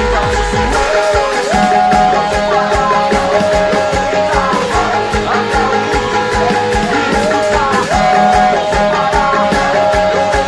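Lead guitar playing the song's bridge riff, sliding between held notes, over a backing track with a steady drum beat.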